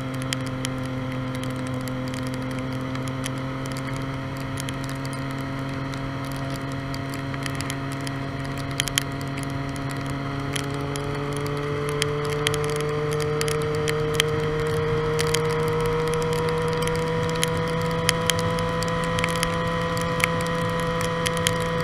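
Triumph Street Triple R's 675 cc inline-three engine droning at a steady cruise under a hiss of wind, its revs creeping up and getting a little louder about halfway through. Scattered sharp ticks of raindrops hitting the camera.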